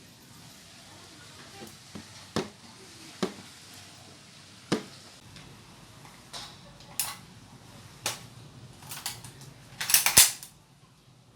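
An A&K spring-powered airsoft Dragunov SVD rifle being handled: a series of sharp metallic clicks and clacks at irregular gaps, ending in a loud cluster of clacks about ten seconds in.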